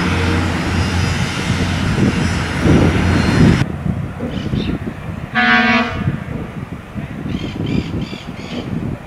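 Alerce motor railcar running past, then an abrupt cut, after which the train's horn gives one blast of about a second. A crow caws several times near the end.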